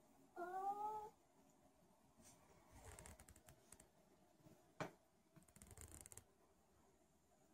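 A domestic cat's single short meow, rising slightly in pitch, about half a second in. Later come a few faint rustles and one sharp click.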